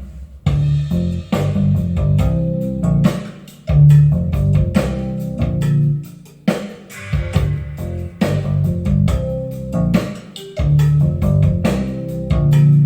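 Music with a prominent bass guitar line, guitar and a drum kit.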